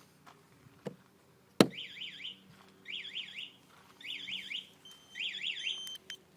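Right after a sharp knock, a bass boat's security alarm goes off: four short bursts of fast warbling chirps, about one a second, then it stops.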